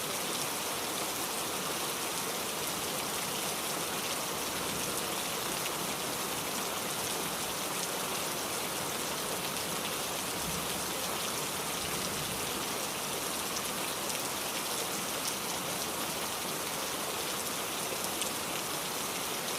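Steady rain falling, an even hiss with many small drop ticks pattering on a surface.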